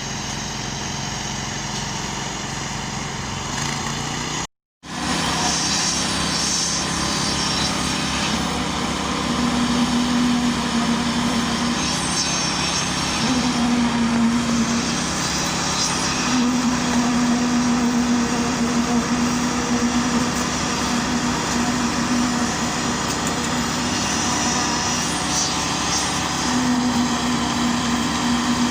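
Construction machinery engines running steadily during a concrete pour. After a cut about five seconds in, a steadier engine note comes and goes several times.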